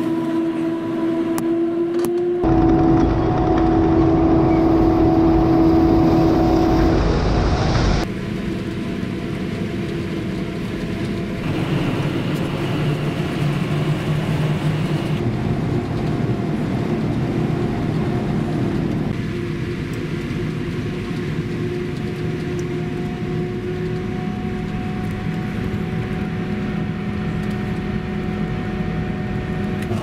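Claas Jaguar 970 self-propelled forage harvester at work chopping silage maize: a steady engine and machinery drone with a held tone. It jumps in loudness and tone several times, loudest a few seconds in.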